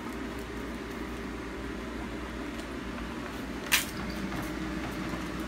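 Steady low background hum in a kitchen. A single sharp knock comes about two-thirds of the way through as the aluminium pressure-cooker pot, loaded with bear paws and offal, is lifted from the sink.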